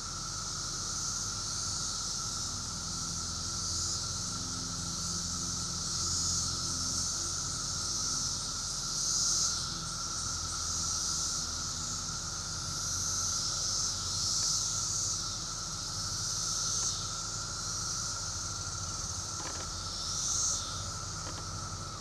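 Chorus of periodical cicadas: a continuous high, hissing buzz that swells and fades in waves every few seconds, over a steadier lower drone.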